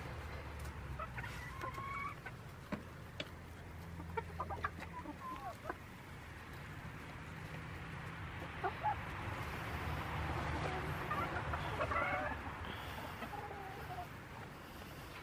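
Hens clucking as they forage, with short calls scattered through, over a low steady rumble.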